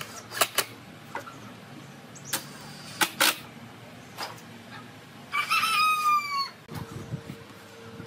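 A rooster crows once, a long call that falls in pitch at its end, about five seconds in. It is the loudest sound, preceded by a few sharp knocks and clicks and followed by a steady faint hum.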